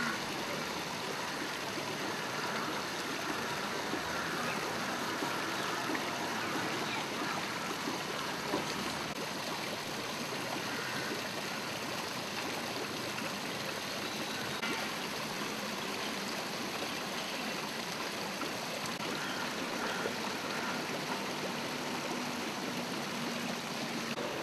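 Steady rush of flowing water, even and unbroken throughout.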